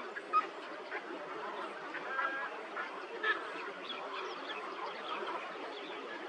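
A flock of birds calling and chattering over one another, with a few louder sharp calls standing out, one about half a second in and one about halfway through.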